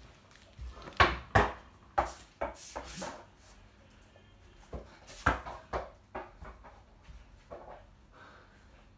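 Small ball bouncing on a wooden floor and knocking against a door-mounted mini basketball hoop: a series of sharp thuds and knocks, the loudest about a second in, then more about every half second, a pause, and another cluster near the middle.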